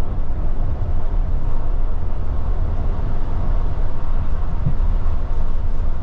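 Steady low rumble of a bus running.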